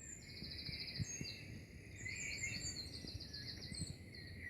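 Several birds chirping and singing, with quick runs of repeated high notes and trills, over faint background noise.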